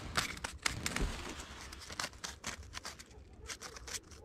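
Close handling noise: rustling with irregular light clicks and taps as a small ice-fishing rod is set down on the ice. It grows quieter about three seconds in.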